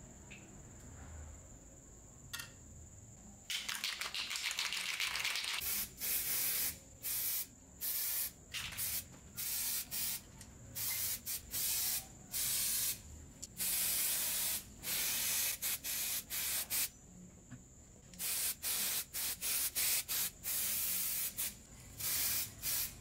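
Aerosol spray-paint can spraying paint onto a metal drill housing in many short hissing bursts, starting a few seconds in, with brief pauses between them.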